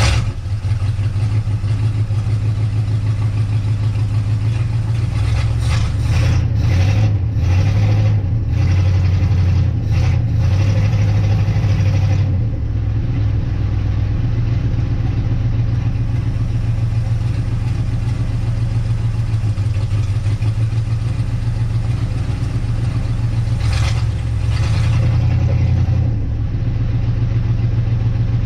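1958 Dodge Coronet Lancer's V8 engine running just after being started, following a points and ignition overhaul. Its note shifts unevenly between about five and twelve seconds in, then settles into a steady idle.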